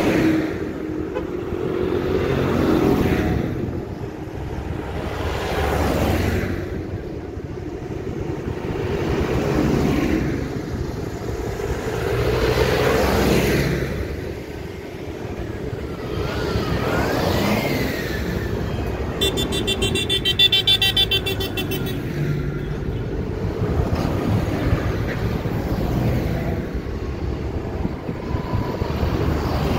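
A procession of modern farm tractors, New Holland and John Deere among them, driving past one after another, each diesel engine swelling and fading as it goes by, about every three to four seconds. A horn toots briefly about two-thirds of the way through.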